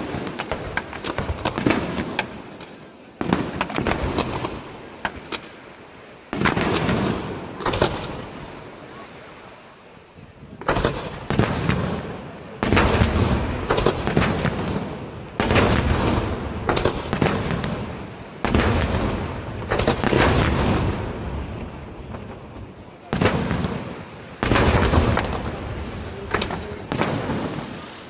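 Aerial firework shells bursting in a dense barrage: sharp bangs arriving in quick clusters, each cluster fading out over a second or two. There is a short lull about eight seconds in, then the bursts build up again thick and fast.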